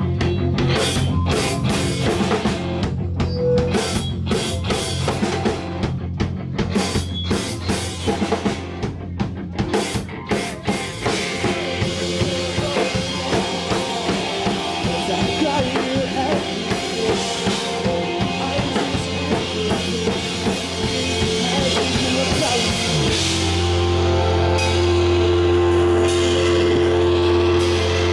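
Live rock band playing: drum kit strokes over electric guitar and bass guitar. Near the end the band holds low notes steadily.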